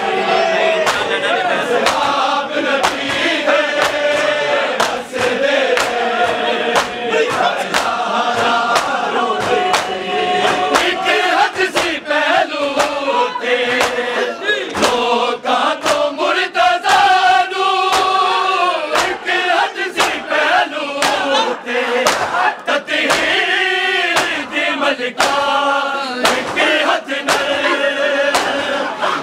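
A group of men chanting a Punjabi noha, a mourning lament, in unison, over a steady beat of sharp slaps from matam, rhythmic chest-beating with the hands.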